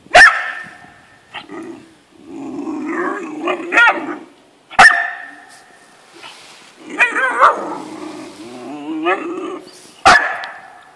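A young American Staffordshire Terrier puppy squaring off with a small kitten: three sharp, loud barks about five seconds apart, with long wavering growls in between.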